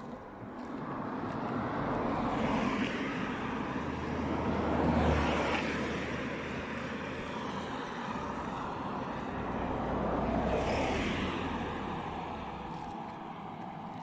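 Road traffic passing: tyre and engine noise swells and fades about three times, loudest about five seconds in, with a low engine hum under the two later passes.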